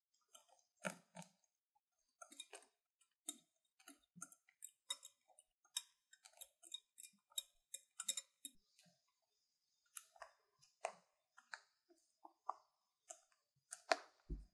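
Wire balloon whisk stirring whipped cream in a glass bowl by hand, with tea custard poured in: irregular soft clicks of the wires against the glass and wet mixing sounds, a few a second with short pauses. A single louder thump near the end.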